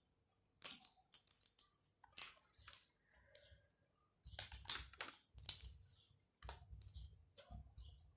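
Faint eating sounds: a person chewing boiled chicken and rice, with scattered sharp mouth clicks and smacks that come more thickly from about four seconds in.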